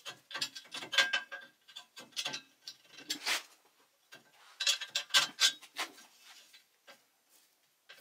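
Hand-worked steel lever mechanism on a homemade table saw frame, clicking and rattling as it is moved back and forth. The clicking comes in three bursts and dies away to a few ticks near the end.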